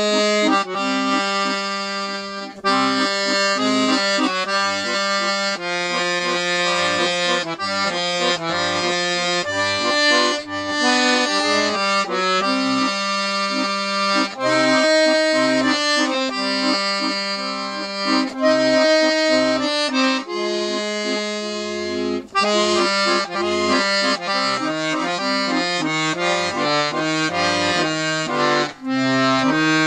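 A Galanti piano accordion, freshly restored with its reeds retuned, playing a tune: a melody on the treble keyboard over a bass and chord accompaniment from the left-hand buttons.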